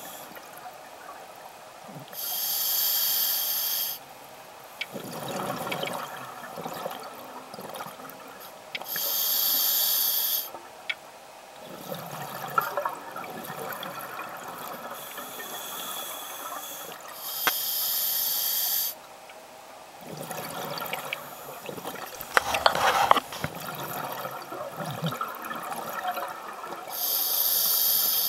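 Scuba diver breathing through a regulator underwater: a softer hiss on each inhale, then a loud rush of exhaled bubbles lasting about two seconds, four times, roughly every seven to eight seconds.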